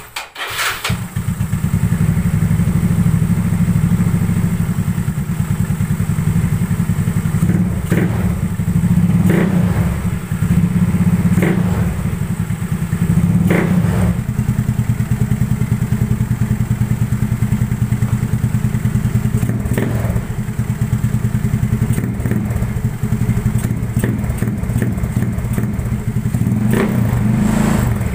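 Yamaha Mio Sporty scooter's single-cylinder four-stroke engine running through a hollowed-out 'kalkal' exhaust pipe, just after starting, giving a loud, rapid pulsing exhaust note. Sharp cracks come every few seconds over the steady running.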